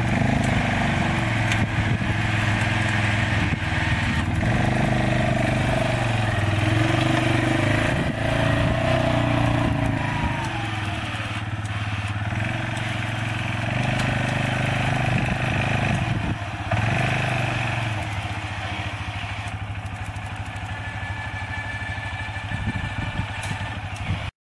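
ATV engine running under load, its pitch rising and falling with the throttle, as it drives a front-mounted loader bucket into a pile of wood chips and climbs a ramp onto a trailer.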